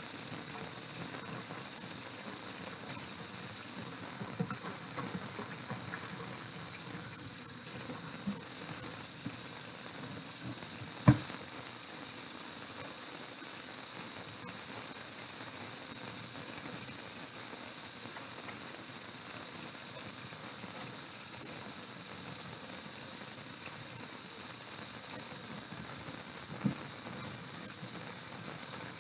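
Steady hiss with a few light knocks and clicks, the loudest about eleven seconds in.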